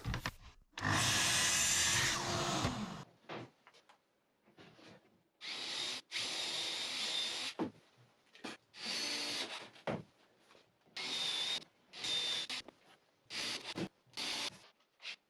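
Power tools working plywood: a louder run of about two seconds about a second in, then about six short runs of a cordless drill-driver, each a second or less with a steady whine, driving screws to fix a backer board.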